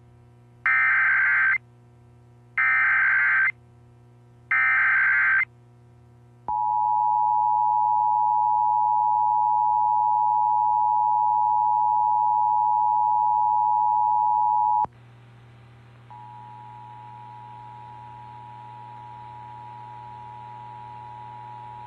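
Emergency Alert System signal: three bursts of buzzy SAME header data about a second each, then the two-tone EAS attention signal held steady for about eight seconds. After a brief break a quieter steady tone follows with a faint hiss under it.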